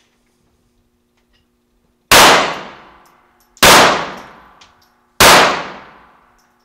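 Handgun shots on an indoor range: three about a second and a half apart, each with a long echoing tail in the lane, and a fourth starting right at the end.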